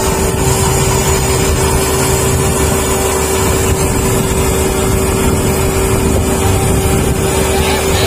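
Rice combine harvester running steadily, a loud, even engine sound with a constant whine over it.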